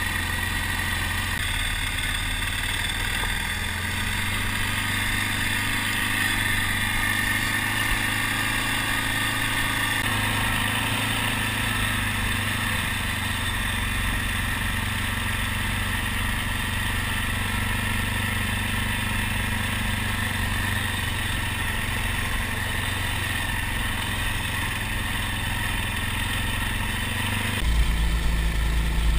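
Arctic Cat 550 TRV ATV's single-cylinder engine running steadily at trail speed, heard from the riding machine with wind rumble on the microphone. The wind rumble grows louder near the end.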